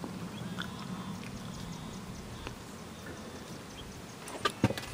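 A low, steady background murmur, then a few sharp knocks in quick succession near the end.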